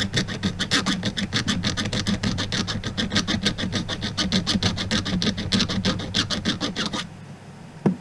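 Small multitool file rasping across the cut end of an LMR400 coax cable in rapid, even back-and-forth strokes, squaring the end before an N-type connector goes on. The filing stops about seven seconds in.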